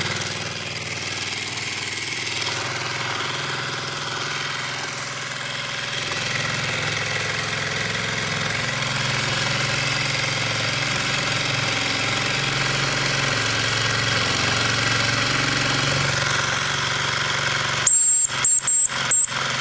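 Mamod SP5 twin-cylinder model steam engine running steadily with its flywheel spinning. Near the end its steam whistle is pulled and gives a few short, shrill toots.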